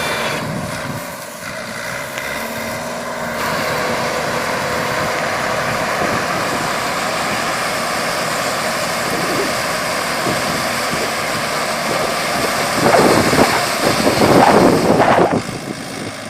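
Mini hay baler running on wheat straw, a steady mechanical drone with louder, uneven surges about 13 seconds in.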